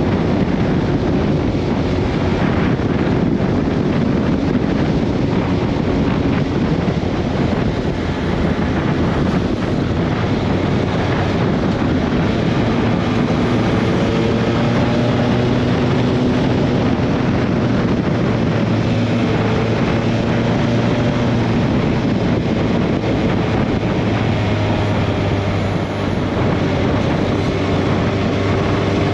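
Honda CB1300SB's inline-four engine running at cruising speed, heard faintly under heavy wind rushing over the microphone while riding. The engine note holds mostly steady.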